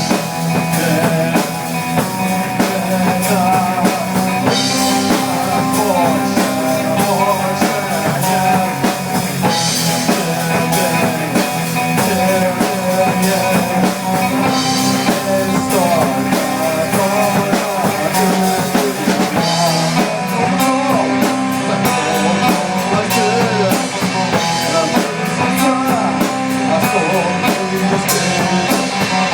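Rock music with a steady drum beat and guitar, with cymbal swells about every five seconds.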